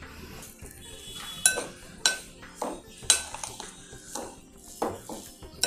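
A spoon stirring semolina and curd together in a glass bowl, clinking against the bowl's side in a series of short, sharp clicks about every half second.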